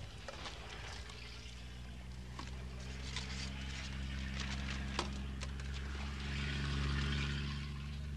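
A vehicle engine running steadily with a low hum that grows louder to a peak about seven seconds in, with scattered light clicks and rattles.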